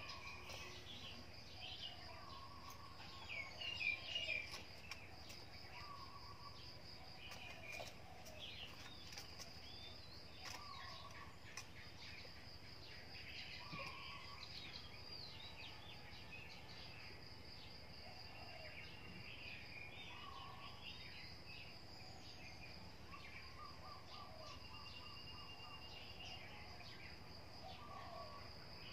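Faint background birdsong: assorted chirps and calls, with one short call repeating every few seconds, over a steady high-pitched whine.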